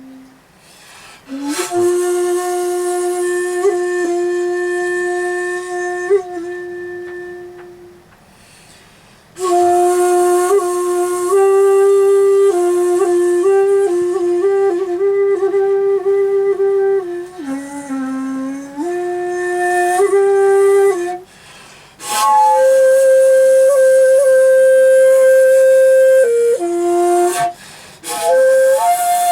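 Shakuhachi bamboo flute playing a slow komuso-style solo: long, breathy held notes broken by short pauses for breath. Some notes bend or step in pitch, and a higher note is held for a few seconds near the end.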